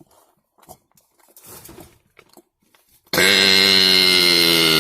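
A man's long, loud burp, starting about three seconds in and held at a deep, steady pitch for more than two seconds, after a few faint mouth and breath sounds.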